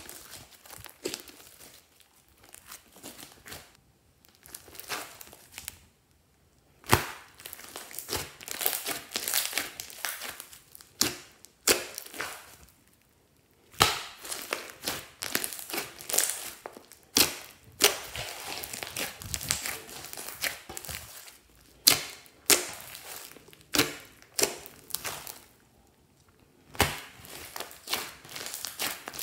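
Slime being squeezed and pressed by hand: irregular runs of sticky crackling and sharp clicking pops, with short pauses between handfuls.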